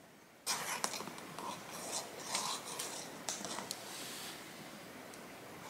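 Rustling with scattered light clicks and ticks, starting suddenly about half a second in and easing off in the last second or so.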